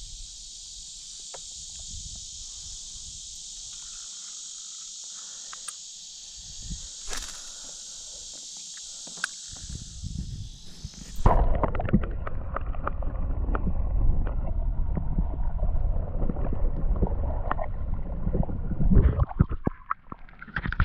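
A steady high-pitched chorus of crickets or other insects, which cuts off suddenly about eleven seconds in. It is replaced by a louder low rumble with many small knocks, typical of wind or handling noise on the microphone while out on a kayak.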